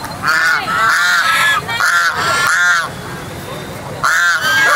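Domestic geese honking loudly, a run of repeated honks over the first three seconds and another pair near the end.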